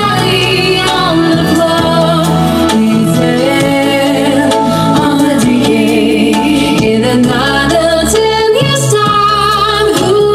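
Pop music played loud over a concert sound system, with several women singing into microphones over a steady bass backing.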